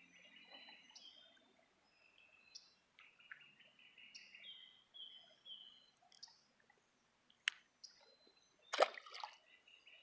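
Faint birdsong: a short high chirp repeated every second or so, along with held whistled notes. A sharp click comes near the middle, and a brief louder clatter of knocks comes near the end.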